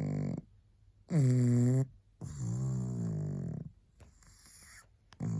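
A sleeping pug snoring: a run of rasping snores about a second long with short gaps between them. The one about a second in is the loudest, and the one near four seconds in is quieter.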